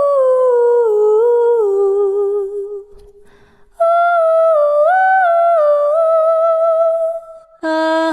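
A high voice humming a wordless eerie melody in two long phrases: the first sinks slowly step by step, and after a short pause about three seconds in, the second wavers up and down around one note.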